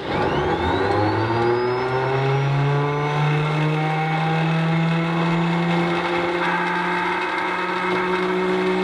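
Starter on the Stinson L-1's Lycoming R-680 nine-cylinder radial engine spinning up: a whine that rises in pitch over the first two seconds or so and then runs steady. The crew hear it as the same sound as on earlier failed attempts, which they take for a failure in the accessory drive.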